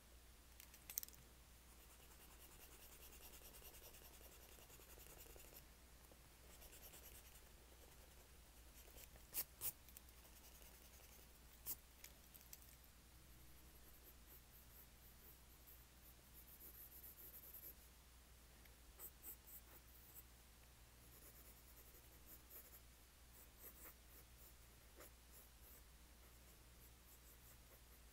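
Faint scratching of a pen drawing on paper, coming in stretches of strokes, with a few sharp clicks or taps between them.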